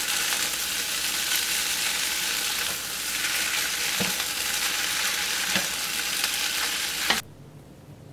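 Rice vermicelli, bean sprouts and tofu sizzling in a hot nonstick wok as they are tossed with a wooden spatula and chopsticks, with a few light knocks of the utensils against the pan. The sizzle cuts off suddenly about seven seconds in.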